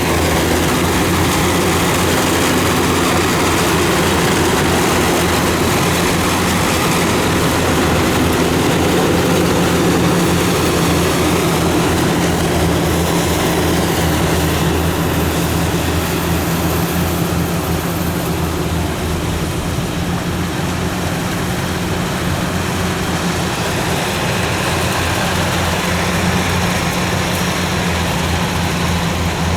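Kubota DC-93 rice combine harvester running steadily while cutting rice: a loud, even diesel engine hum with the threshing and cutting machinery whirring over it.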